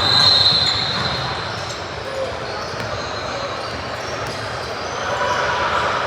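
Basketball game in a gym: a single steady whistle blast at the start, held about a second and a half, over voices and a ball bouncing on the court.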